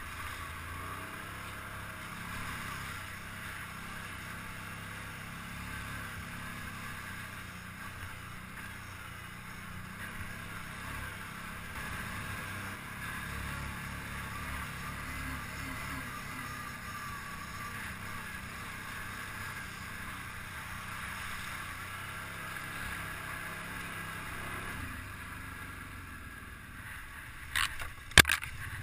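ATV engine running steadily under way, heard from a helmet-mounted camera. A few sharp knocks come near the end.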